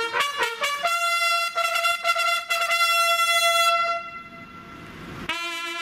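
A solo military trumpet sounds a call: a few quick short notes, then one long held note. Near the end a brass band begins to play.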